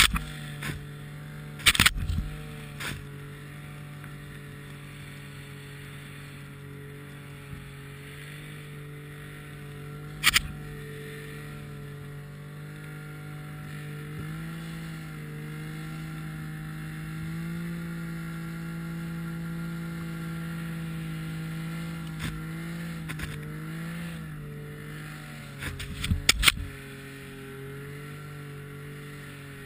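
Engine of a motorised snow vehicle running steadily while ploughing through deep powder, its pitch rising a little and settling back a couple of times. Sharp knocks are heard about two seconds in, about ten seconds in, and twice near the end.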